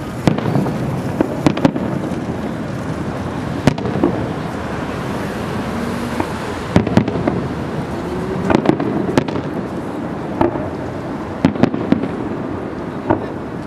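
Aerial firework shells bursting in a display: about a dozen sharp bangs at uneven intervals over steady background noise.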